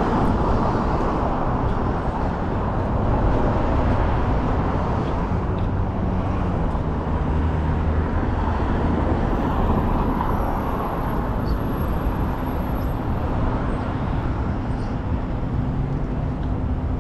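Road traffic on a wide multi-lane street: cars driving past with a steady rumble of engines and tyres.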